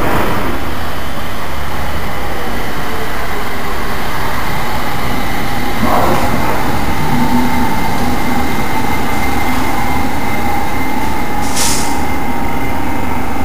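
London Underground train running in alongside the platform and slowing, with a steady rumble of wheels on rail and a motor whine that holds a steady pitch for the second half. A short hiss of air comes near the end.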